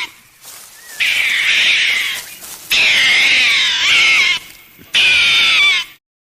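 An animal calling: three long, high, wavering cries in a row, each one to one and a half seconds long.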